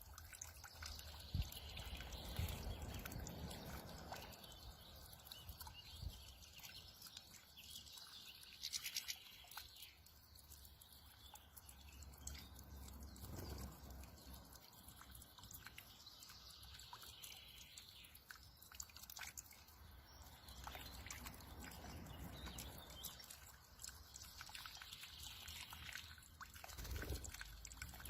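Faint, intermittent splashing and water flicks from a goldfinch bathing in shallow water, over a low rumble.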